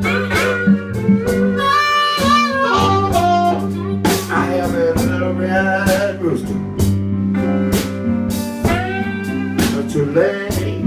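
Blues band playing an instrumental passage: guitar with sliding, bending notes over a steady bass line and a drum beat of about two hits a second.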